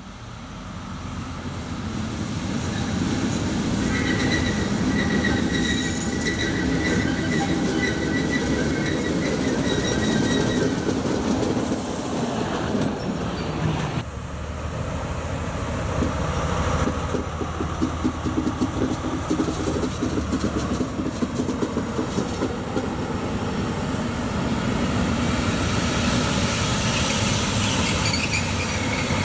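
Diesel freight locomotive running slowly along the track, its engine rumbling, getting louder as it approaches over the first few seconds. The wheels squeal with thin high tones partway through and click over the rails.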